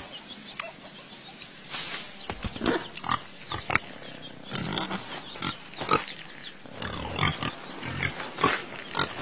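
Cartoon pig grunts from round animated pigs: a string of short, irregularly spaced grunts, starting about two seconds in.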